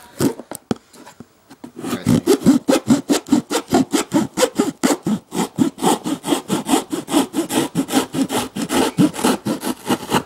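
Rapid back-and-forth sawing strokes, about six a second, cutting through a cardboard shipping box, starting about two seconds in after a few light clicks.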